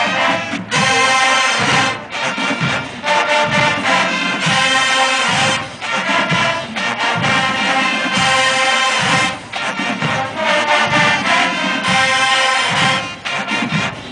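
Marching band brass and drums playing an upbeat dance tune in short, punchy phrases separated by brief breaks.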